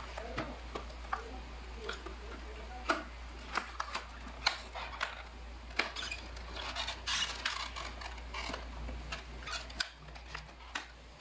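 Cardboard box and plastic inner tray of a gaming-mouse package being handled and worked apart: a run of small clicks, taps and scrapes, denser about seven seconds in, over a steady low hum.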